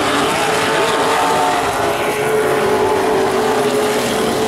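Vintage modified stock cars running on the oval, their engines making a loud, steady racing drone at high revs, one engine holding a steady pitch through the second half.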